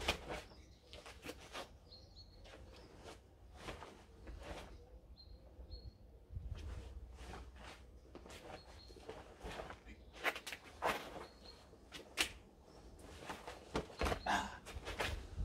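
Sharp snaps and scuffs from a karate kata: the gi's cloth snapping with strikes and feet shifting on stone paving, coming more often and louder in the second half. Short bird chirps come and go, over a low wind rumble.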